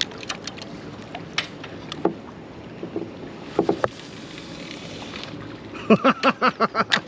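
Quiet boat-side ambience with scattered light clicks and taps from handling a fishing rod and tackle. A man's voice comes in near the end.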